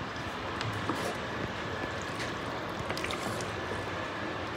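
Steady background hiss with a few faint, light clicks of a spatula stirring spaghetti in an enamel pot.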